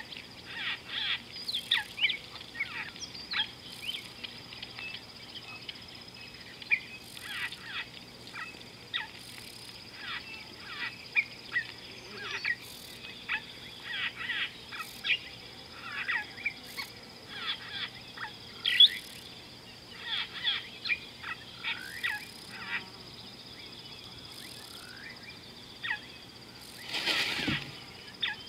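Wild birds chirping and whistling in quick, overlapping short calls, over a steady high-pitched hum. Near the end a rushing noise lasts about a second.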